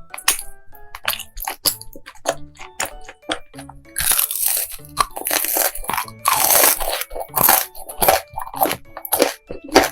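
Crunchy biting and chewing of food, a quick run of crackly crunches that grows loudest and densest from about four to eight seconds in, over light background music.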